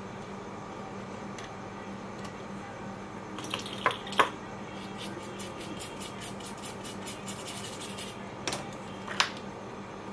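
Sharp little clicks and taps of hand tools at an electronics repair bench: a pair of clicks about four seconds in, a run of faint rapid ticks, then two more clicks near the end, over a steady fan hum.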